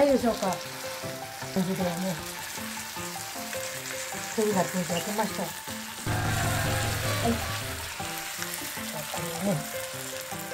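Chicken pieces and umeshu plums sizzling in a frying pan as the teriyaki sauce cooks down. A low rumble joins in for a second or two about six seconds in.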